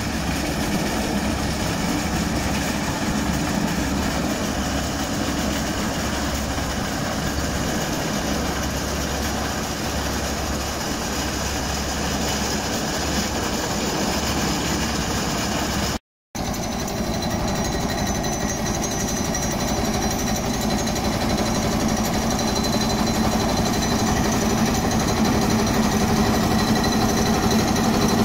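BOMAG single-drum vibratory roller compactor running steadily while compacting earth fill, its diesel engine and drum giving a continuous mechanical din. The sound cuts out for a moment about sixteen seconds in, then returns a little louder.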